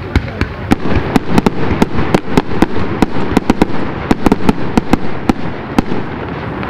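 Fireworks display with aerial shells bursting: a rapid, irregular string of sharp bangs over a continuous crackling wash, densest through the middle, with the bangs thinning out near the end.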